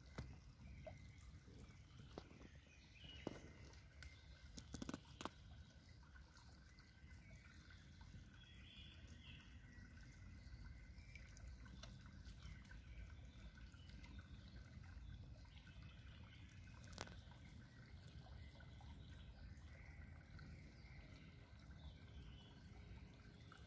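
Near silence: faint outdoor ambience with a few soft clicks and drips of water, most of them about three to five seconds in and one more near the middle.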